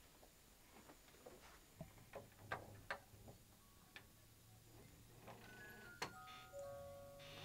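A doorknob being turned, with scattered faint clicks, the sharpest about six seconds in, over a low hum that comes in about two seconds in. Near the end, a few held musical notes come in one after another at different pitches.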